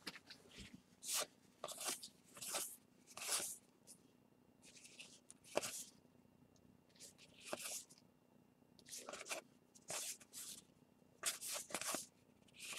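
Baseball trading cards sliding against one another as they are flipped through one at a time: a string of short, faint swishes with gaps between them.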